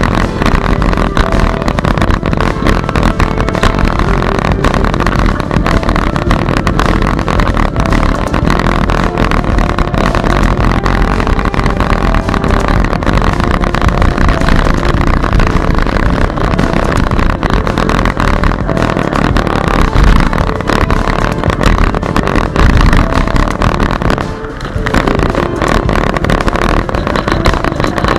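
Wind and road noise on the microphone of a bicycle-mounted camera while riding: a loud, steady rush heaviest in the low end, easing briefly near the end. Faint background music runs underneath.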